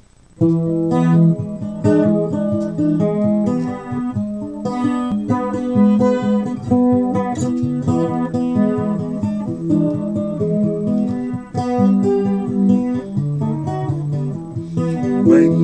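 Home-made four-string guitar with a Jules Destrooper biscuit-tin body, played solo: a picked melody over low notes, starting about half a second in.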